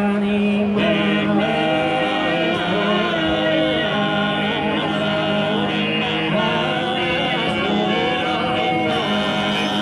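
Choir singing a slow song in several voice parts, holding long chords.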